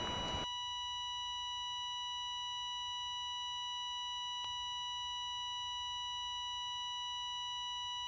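A steady, high-pitched electronic tone held without a break, a pure sine-like ringing sound effect. The background hiss drops out about half a second in, leaving only the tone, and a faint click comes about halfway.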